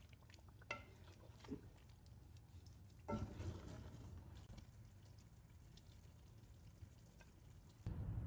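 Wooden spatula stirring chicken pieces in thick curry gravy in an aluminium pot, faint, with a few knocks and scrapes against the pot, the loudest about three seconds in.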